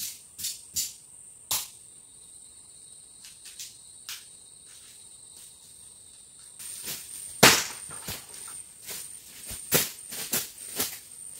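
A steady, high insect trill, with a second, lower trill that stops about six and a half seconds in. Over it come scattered sharp cracks and snaps. The loudest is about seven and a half seconds in, and a quicker run of them comes near the end.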